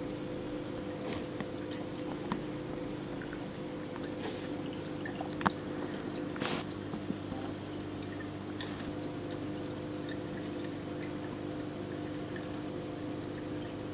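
Aquarium running with a steady low hum, with scattered small clicks and watery ticks over it. One sharper click comes about five and a half seconds in, followed by a short splashy burst.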